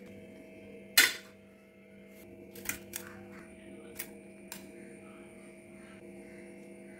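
Folded banana-leaf parcels being handled and set into a steel plate: a loud crisp leaf crackle about a second in, then a few lighter rustles and taps, over a steady low electrical hum.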